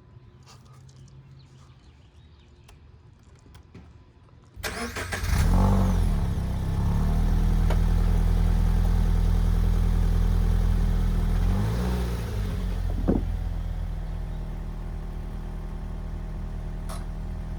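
Subaru BRZ's flat-four boxer engine starting: after a quiet stretch it catches suddenly with a short flare, then runs at a steady fast idle that settles to a lower idle about twelve seconds in.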